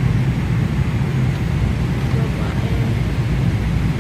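Steady low drone of a jet airliner's cabin in flight, the constant engine and air noise heard from a passenger seat.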